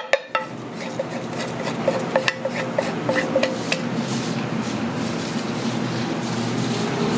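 Wooden spatula knocking and scraping in a metal frying pan: a run of light, ringing knocks for a few seconds, then stopping, over a steady background hum.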